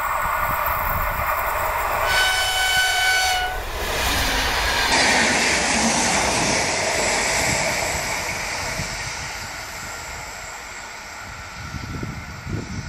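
Renfe class 440 electric multiple unit approaching and sounding one horn blast of about a second and a half, some two seconds in. The train then passes close by with rolling wheel noise that slowly fades away, with wind gusts on the microphone near the end.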